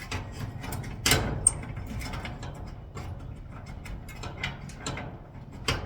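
Irregular metal clicks and clanks of hand work on garage door hardware as a small spring part is worked off the door, with the loudest knock about a second in and a brief high ping just after.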